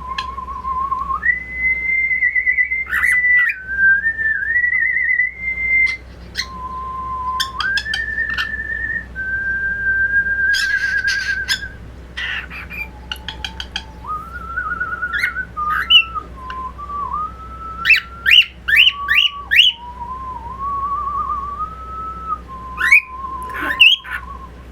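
Pet cockatiel whistling: long held notes with a slight warble that jump between a lower and a higher pitch, broken by short clicky chirps and a run of quick rising whistles about three quarters of the way through.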